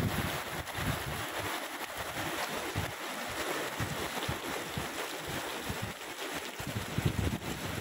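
Heavy rain falling steadily as a constant hiss, with wind buffeting the microphone in gusts that ease off in the middle and pick up again near the end.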